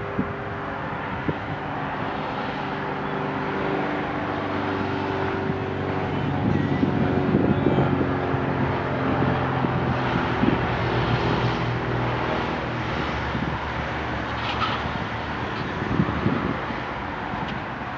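A vehicle engine running steadily outdoors, growing louder toward the middle and easing off again near the end, with wind on the microphone.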